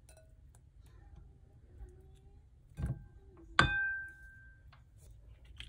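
Kitchenware handled: a soft knock, then a sharp clink that rings briefly at several clear pitches, with a few small ticks around it.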